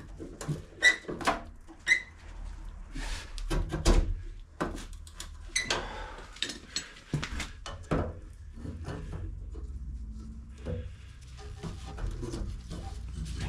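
Steel sill panel and tools being handled and clamped: irregular sharp metal clanks and clicks, a few ringing briefly, busiest in the first half and thinning out near the end.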